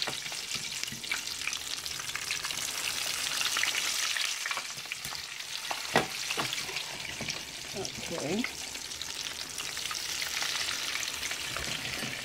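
Hot oil frying in a deep pot, a steady dense crackling sizzle, with one short sharp knock about six seconds in.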